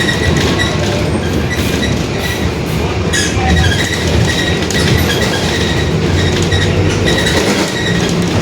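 Mercedes-Benz OF-1721 BlueTec 5 bus heard from inside while driving: steady engine and drivetrain rumble with ride noise, and a faint high-pitched whine that comes and goes.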